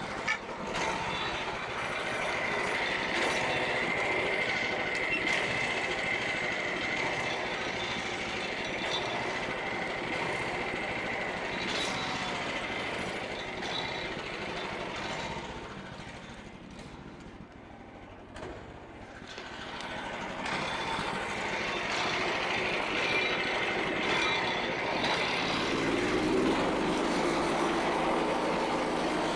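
Frontier OS27 bandsaw sawmill running, its engine-driven blade sawing through a red oak log with a steady high whine. The sound dips about two-thirds of the way through, then picks up again, with a lower engine hum in the last few seconds.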